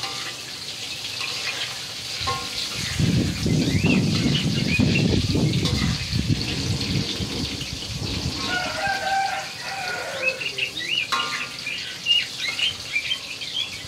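Sliced eggplant frying in oil in a wok, a steady sizzle, with a metal spatula in the pan. Small birds chirp on and off throughout, with a few short pitched calls around the middle, and a louder low rushing noise rises for a few seconds near the start.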